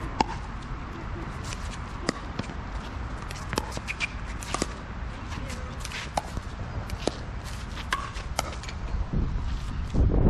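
Pickleball paddles striking a plastic ball during a rally: sharp single pops at irregular gaps of one to two seconds. A low rumble rises near the end.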